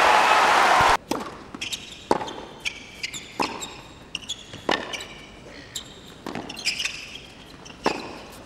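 Crowd applause and cheering that cuts off abruptly about a second in. Then a tennis ball is bounced on the hard court before a serve, one sharp bounce roughly every second, over a low crowd murmur.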